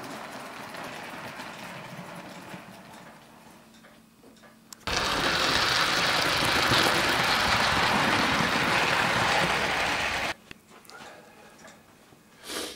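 Live-steam 00 gauge model of a GER S69 steam locomotive running with its train on the track: a dense, rapid mechanical clatter. It is fairly quiet and fading at first, then much louder from about five seconds in, and it cuts off suddenly about ten seconds in.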